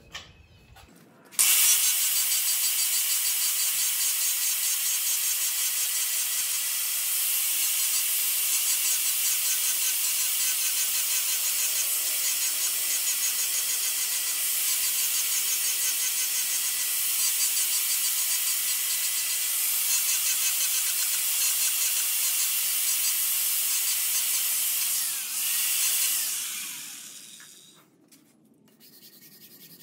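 Angle grinder running with its disc lightly grinding the high spots on a metal lathe-way insert, the ones marked by Prussian blue dye, to flatten the way. It starts abruptly about a second and a half in, runs steadily, and is switched off near the end, fading as it spins down.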